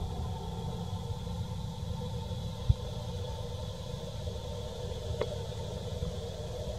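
Steady low outdoor rumble, with one dull thump about two and a half seconds in and a faint click later on.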